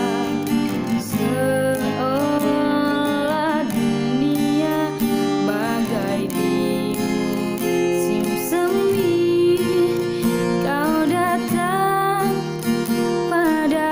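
Acoustic guitar playing a pop song, plucked and strummed, with a melodic line of held and gliding notes over it.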